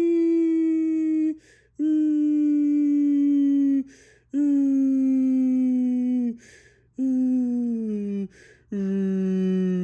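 ACA Alertronic AL-5000 electronic civil defense siren sounding its Attack signal. A loud, buzzy tone breaks off about every two and a half seconds with a brief hiss in each gap. Each note slides slowly down, so the pitch steps lower from note to note, and a lower held tone begins near the end.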